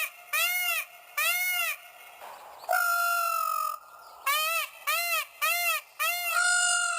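Indian peacock calling: loud, short honking calls that rise and fall in pitch, about half a second each, given in a series. A longer, drawn-out call comes about three seconds in, a quicker run of short calls follows, and another long call comes near the end.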